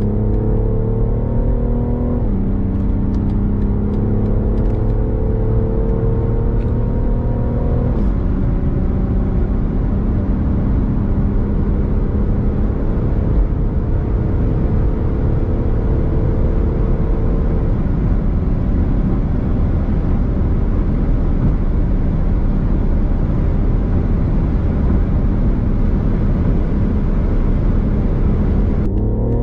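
Car engine at full-throttle acceleration at motorway speeds, heard from inside the cabin over road and wind noise. Its pitch climbs and drops sharply at upshifts about two and eight seconds in, then settles into a steadier high-speed drone. The sound cuts off right at the end.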